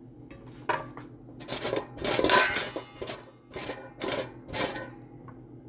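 Kitchen utensils at work during food preparation: a click, then about six short strokes of scraping noise, the longest and loudest about two seconds in, over a faint steady low hum.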